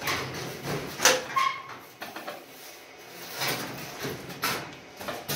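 Thin sheet-metal panel from a wood stove's rear tin work clattering and wobbling as it is lifted and carried. The loudest clang is about a second in, with a brief ring after it, and lighter knocks follow.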